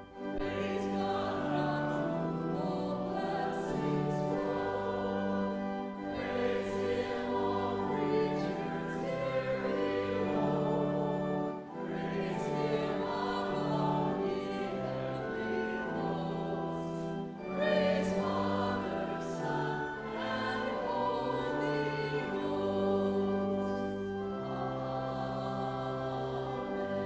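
Voices singing slow, sustained chords over organ accompaniment, the chords changing every second or so.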